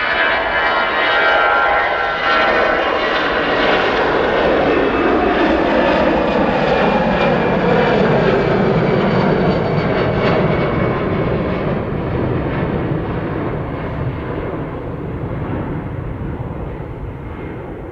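Airbus A320-214's twin CFM56 turbofan engines at takeoff thrust as it rolls, lifts off and climbs away: loud jet noise with whining tones at first, a pitch that slides down as the aircraft passes, then a slow fade.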